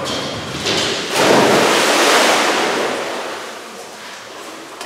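A dog hitting the water in a dock-diving pool: a loud splash a little over a second in, the splashing and sloshing fading away over the next two seconds.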